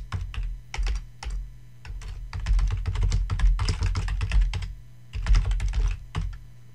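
Typing on a computer keyboard: quick runs of key clicks in three bursts with short pauses, stopping shortly before the end, over a steady low hum.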